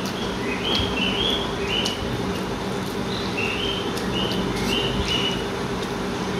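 A small bird chirping in the background in many short, high chirps, over a steady low hum, with a few faint clicks.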